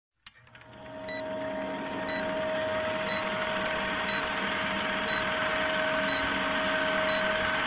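Vintage film-projector sound effect under a countdown leader: a steady mechanical whirr with a fast rattle of clicks and crackle, fading in during the first second, with a short high beep once a second.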